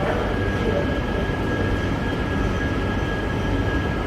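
Workshop machinery running steadily: a low rumble under a constant high-pitched whine.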